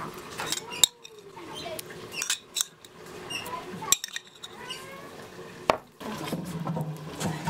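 Kitchen clatter of dishes and cutlery around a pan: three sharp clinks, about a second in, near the middle and past five seconds, over quieter handling sounds.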